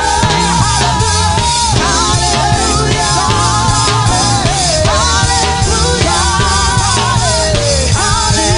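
Live gospel praise-break music: a band with heavy bass and a steady driving beat, with sung melody lines wavering over it.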